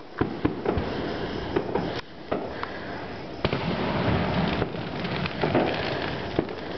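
Loud fireworks display going off: an irregular run of sharp bangs and pops over a constant crackling hiss.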